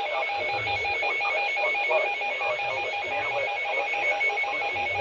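Broadcast weather-warning alert tone: an electronic beep of several pitches sounding together, pulsing rapidly at about five beeps a second without a break.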